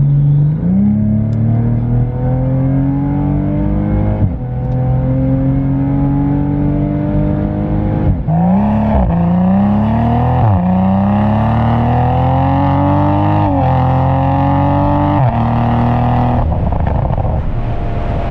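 Toyota A90 Supra running a cat-back exhaust over a catless downpipe, accelerating through the gears: the exhaust note climbs in pitch and drops sharply at each of about five upshifts. Near the end the revs hold steady.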